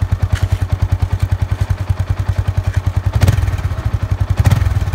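Motorcycle engine idling through its stock silencer, the bike's normal exhaust sound, in steady low pulses. It briefly swells louder twice in the second half, as the throttle is blipped.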